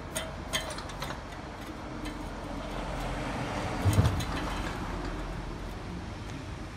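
A Honda F510 tiller's 5 hp engine running steadily at low speed, with a few sharp clanks in the first second and a brief loud thump about four seconds in as the machine is walked over pavement.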